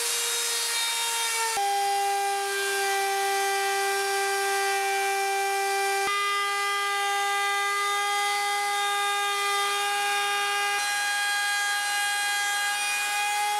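Electric plunge router with a flush trim bit cutting the edge of a wooden workbench top, its motor running at speed with a steady high whine over the hiss of the cut. The pitch jumps slightly a few times.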